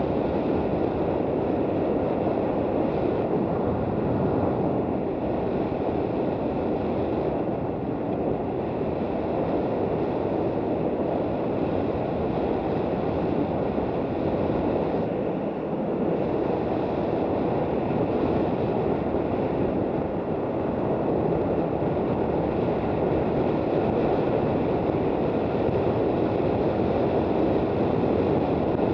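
Steady rush of wind and road noise while riding a motorcycle on a rough desert road, with the engine running underneath.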